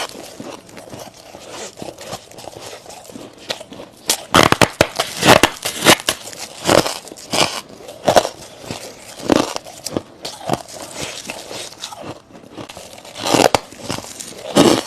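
Biting and chewing soft frost ice close to the microphone: a string of crisp crunches, densest from about four to nine seconds in, with a couple more near the end.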